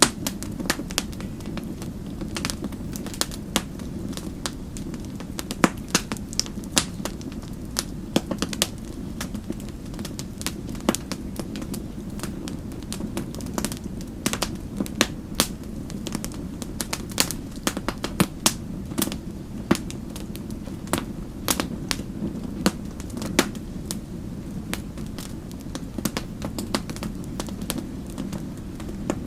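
Wood fire crackling in a fireplace: a steady low rumble of flames with sharp, irregular pops and snaps several times a second.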